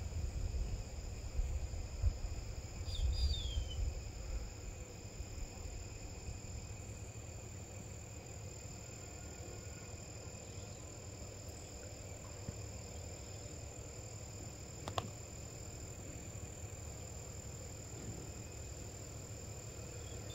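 Steady high-pitched insect chorus droning throughout. A low rumble, as of wind or handling on the microphone, fills the first few seconds, with a brief falling bird chirp about three seconds in and a single sharp click about three-quarters of the way through.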